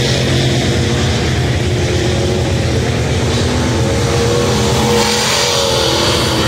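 Race car engines running hard on track, rising and falling in pitch as the cars accelerate.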